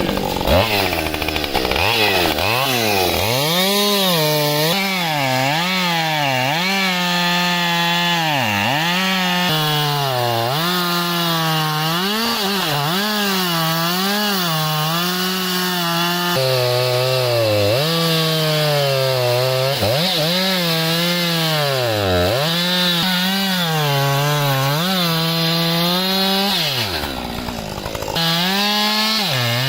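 Two-stroke chainsaw running at high revs and cutting wood. Its engine note dips again and again as it bogs under load in the cut, then climbs back. Near the end it briefly falls to a lower, quieter note before revving up again.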